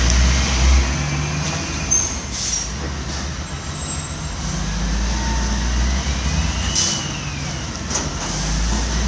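Garbage trucks' diesel engines running with a steady low rumble, with short air-brake hisses about two and a half and seven seconds in.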